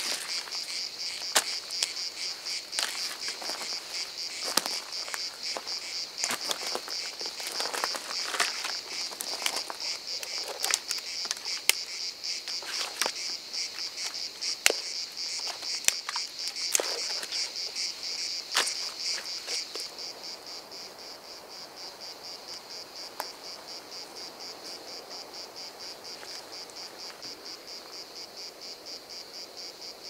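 Dry pine twigs and sticks snapping and crackling as they are gathered and broken by hand, in sharp cracks every second or so. Under them runs a steady chorus of insects chirring in a fast even pulse. The snapping stops about two thirds of the way through, leaving only the insects.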